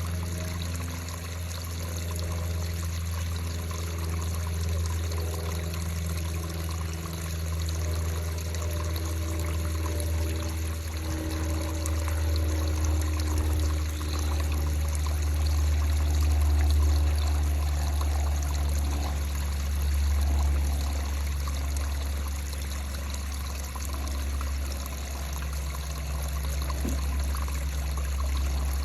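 Drawn-out creaking groans, slowly wavering in pitch, over a steady low rumble.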